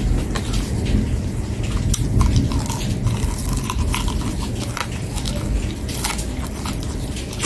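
Close-up chewing and mouth sounds of a person eating with her fingers: irregular wet smacks and clicks as she chews and sucks food off her fingers, over a steady low rumble.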